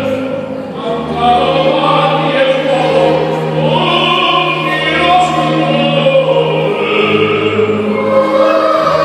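A children's choir singing a song with instrumental backing, the low accompanying notes shifting every second or two.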